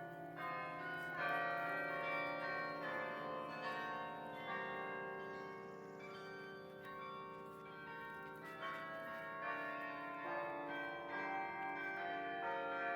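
Carillon bells of Bok Tower's Singing Tower playing a melody: bell notes struck one after another, about one or two a second, each ringing on into the next.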